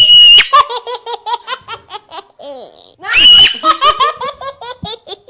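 Baby laughing hard from being tickled: a loud high squeal at the start and another about three seconds in, each running into a rapid string of short laughs.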